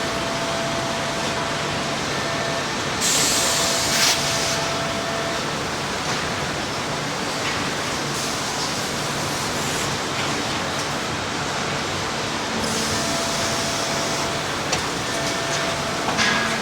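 Hay and straw baler running in production: a steady mechanical noise with a faint steady tone, broken twice by hissing bursts of about two seconds, about three seconds in and again near thirteen seconds.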